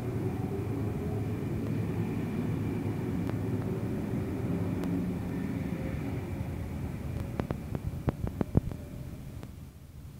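Sydney Trains S set double-deck electric train pulling out past the platform, a steady rumble of wheels and motors that fades as the rear car draws away. A quick run of sharp clacks comes near the end.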